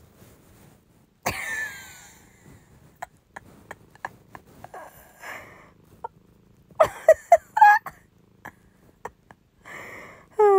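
A person's stifled laughter: a sharp gasp about a second in, soft breaths and snorts, then a run of short loud laughing bursts around seven seconds in.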